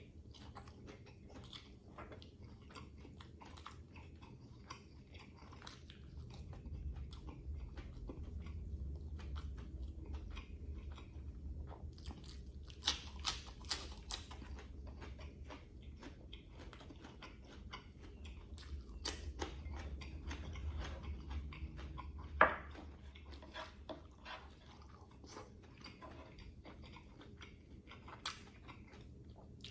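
Close-up chewing and biting of a meal of grilled lemongrass chicken, rice and raw vegetables, with many short clicks of the mouth and food, a louder cluster about halfway through and one sharp click about 22 seconds in.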